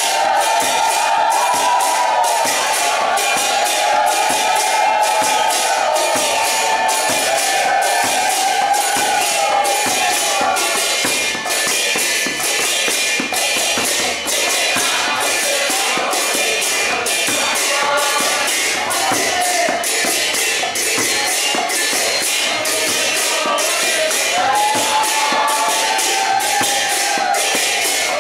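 Devotional group chanting (kirtan) by a crowd, with hand cymbals striking a steady, fast beat and a drum underneath. The chorus of voices swells again near the end.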